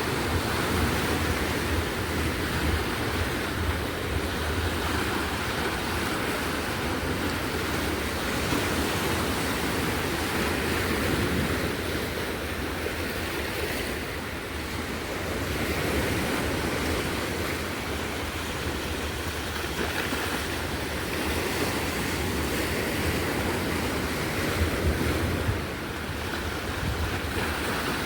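Sea waves washing steadily on the shore, swelling and easing slowly, with wind rumbling on the microphone.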